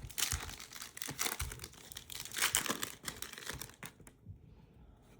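A trading-card pack wrapper being torn open and crinkled in the hands, a dense crackling rustle that dies down near the end.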